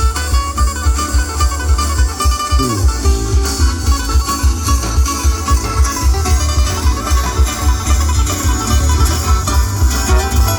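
Instrumental Paraguayan polka played live by plucked string instruments over a strong, steady bass beat.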